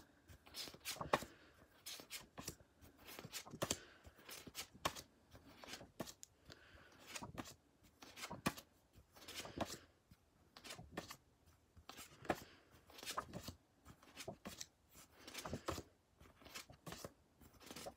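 Paper index cards being flipped one at a time and laid on a pile, a soft rustle and tap about once a second.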